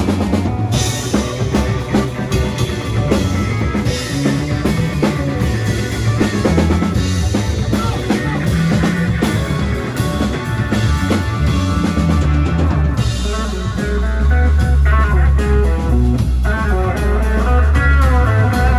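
Live psychedelic rock band playing an instrumental passage: drum kit, electric guitar and keyboards, loud and continuous, with the low end getting heavier near the end.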